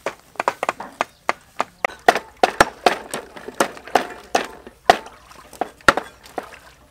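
Knives chopping chicken feet on wooden boards: sharp, irregular knocks, several a second.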